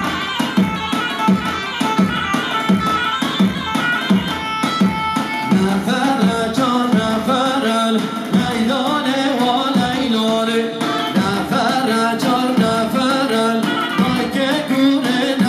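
Kurdish wedding dance music: a steady drumbeat under a melody line, with singing joining about six seconds in.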